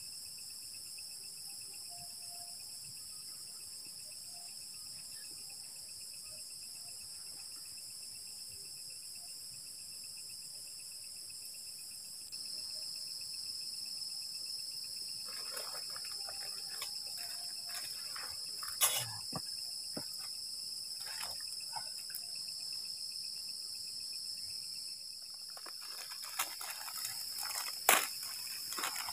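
Steady night chorus of crickets, a continuous high shrill trill. From about halfway, scattered crackles and clicks join it, with two sharp, louder clicks, one about two-thirds in and one near the end.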